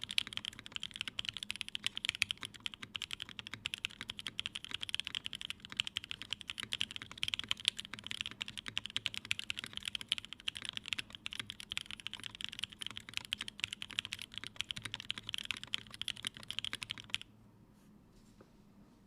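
Fast, continuous typing on a TGR Unikorn r2.1 mechanical keyboard with a polycarbonate case, aluminium plate, Creamsicle switches lubed with Krytox 205g0 and filmed, and CRP keycaps. The typing stops suddenly about two seconds before the end.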